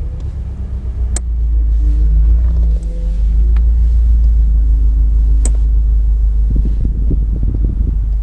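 2011 Subaru STI's flat-four engine running with a steady low rumble whose pitch shifts slightly, while the clutch pedal gives sharp clicks about a second in and again about five seconds in, then a run of irregular knocks near the end. This is the clutch pedal noise that a replaced clutch switch has not cured.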